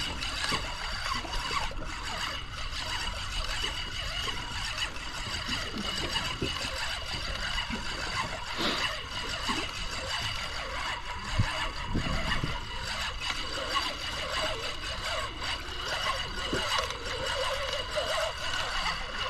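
Small waves lapping and gurgling against the hull of a small boat at sea, a steady low wash with small irregular splashes.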